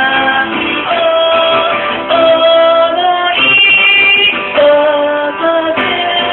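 A woman singing a slow song to her own acoustic guitar accompaniment, holding long notes.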